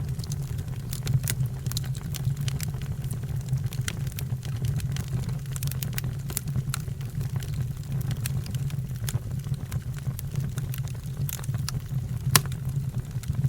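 Wood fire crackling, with irregular sharp pops over a steady low rumble of the flames, and one louder pop near the end.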